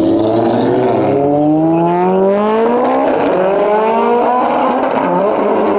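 Car engine accelerating hard down a drag strip, its pitch climbing steadily, with one upshift about three seconds in before it climbs again and levels off.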